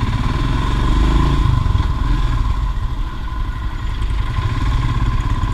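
Royal Enfield Himalayan's single-cylinder engine running as the motorcycle pulls away and rides on, with a brief rise in revs about a second in.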